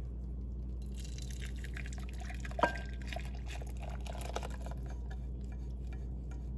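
Warm, frothy milk-and-pumpkin mixture poured from a saucepan into a glass bowl, splashing and dripping as a whisk scrapes it out of the pan. One sharp knock comes about two and a half seconds in.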